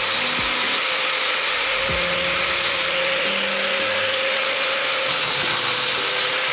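Power tool sanding the knife's handle smooth, running steadily with an even grinding hiss over a constant motor hum.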